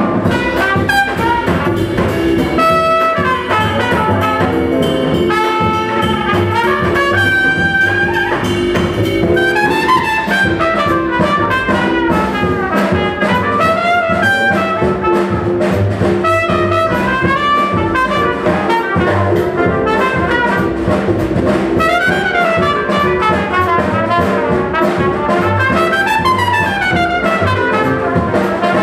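Trumpet soloing over piano, double bass and drums in a live jazz quartet, playing quick runs that climb and fall.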